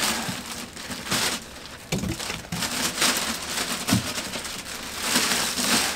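Plastic packing bag crinkling and rustling as it is pulled off a boxed machine, with a couple of soft thumps about two and four seconds in.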